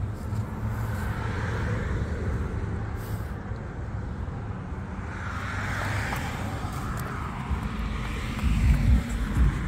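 Steady low traffic and vehicle rumble, swelling in the middle and with a louder low rumble near the end.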